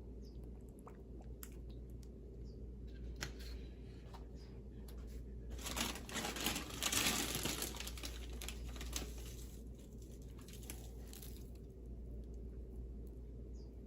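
Packaging crinkling and rustling as it is handled, loudest for a couple of seconds around the middle and fading after, with scattered small clicks before and after.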